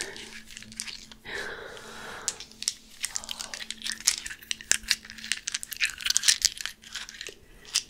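Crinkly packaging being handled and crumpled close to the microphone, with many quick, sharp crackles.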